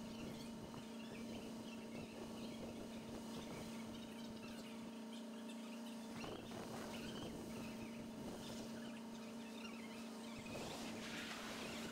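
A faint steady hum over low background noise, with a brief rustle about six seconds in and another near the end.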